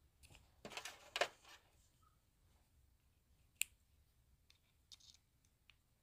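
Faint handling clicks of small tools and knife parts, with one sharp, brief click about three and a half seconds in and a few tiny ticks near the end.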